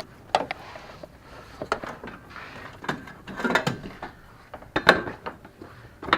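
Scattered sharp plastic clicks and knocks as a 2012 Nissan Rogue's front turn signal bulb socket is twisted and locked into the headlight housing, with handling and rustling of the parts in between.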